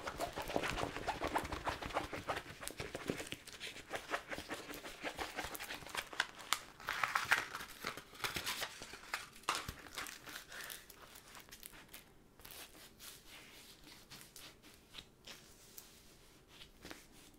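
Rolled diamond painting canvas with its plastic cover film crinkling and rustling as it is unrolled and flattened by hand. The crackling is busiest in the first half and thins out after about ten seconds.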